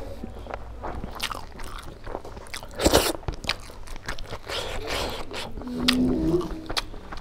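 A man chewing and crunching mouthfuls of pork curry and rice close to the microphone, with wet mouth clicks and a sharp crunch about three seconds in.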